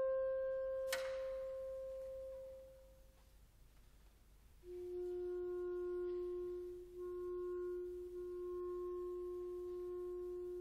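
Solo clarinet playing soft held notes: a long note fades away, with a sharp click about a second in, then after a short pause a lower note is held and re-tongued twice.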